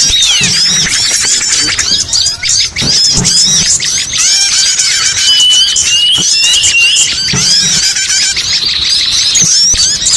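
A dense chorus of many small songbirds chirping and twittering at once, layered as a bird-lure recording for calling in small birds, with a dry trill about five seconds in. A few soft low thumps sit underneath.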